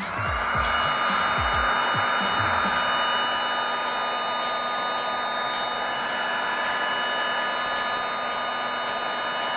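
Cordless heat gun switched on: its fan spins up with a quick rising whine, then runs steadily, blowing hot air with a steady whine over a rush of air.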